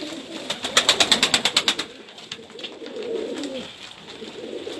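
Domestic pigeons cooing in a loft, with a rapid run of sharp wing claps, about ten a second, lasting just over a second starting about half a second in, as a pigeon beats its wings.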